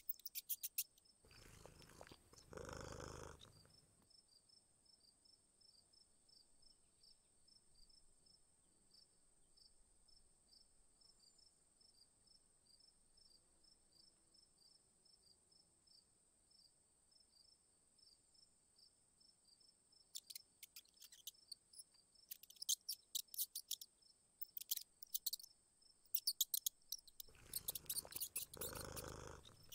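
Faint insect chorus, likely crickets: a steady high-pitched trill runs throughout, with bursts of rapid high chirping in the last third. A soft rush of noise swells briefly twice, a couple of seconds in and near the end.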